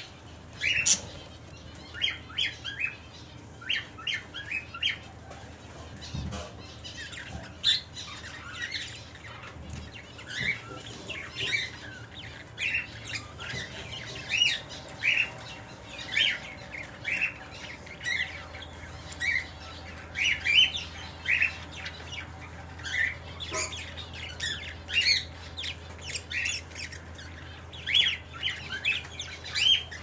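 Budgerigars chirping: short, sharp calls one to three a second, with the odd louder squawk.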